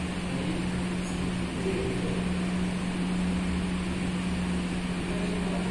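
Steady machine hum with one constant low tone, unchanging throughout.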